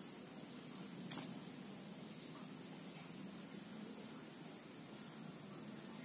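Insects droning steadily at a high pitch, with short high chirps repeating about once a second and a single sharp click about a second in.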